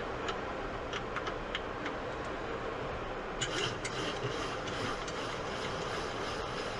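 Steady cockpit rumble and hiss of a Boeing 737-800 rolling on the ground after landing, from its idling engines and ventilation. Light clicks and rattles sound through it, with a quick even run of them at about three a second in the second half.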